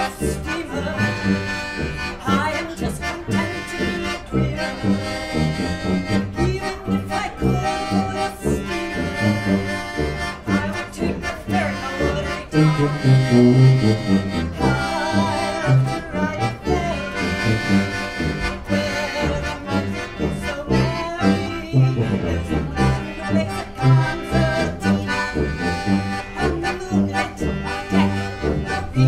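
Piano accordion and tuba playing a polka-style 1940s tune, the tuba pulsing a steady bass line under the accordion's melody and chords.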